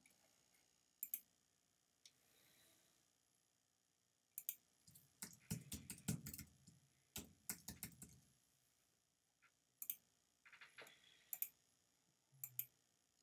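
Computer keyboard typing: a quick run of key clicks from about five to eight and a half seconds in, with a few single clicks before and after it.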